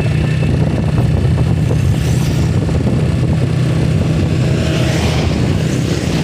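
Road traffic going by: a car and motorcycles pass in the opposite direction, the nearest motorcycle swelling and fading about five seconds in, over a steady low hum.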